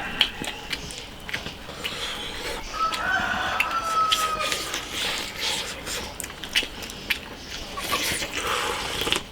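A rooster crows once, a long drawn-out call about three seconds in, among scattered light clicks and knocks.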